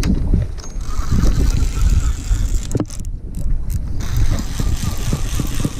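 Wind buffeting the microphone as a constant low rumble, over a steady hiss that cuts out briefly about three seconds in, with a few short knocks from handling.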